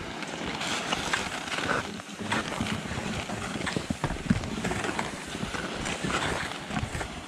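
Backcountry skis and a towed pulk sled sliding and crunching over snow, with uneven crunches and pole strikes, and wind rumbling on the microphone.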